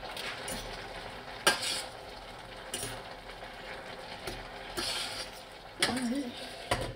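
Metal spoon stirring vegetables in a stainless steel saucepan, with scattered clinks and knocks against the pan and its lid, the sharpest about a second and a half in, over a steady hiss from the steaming pan.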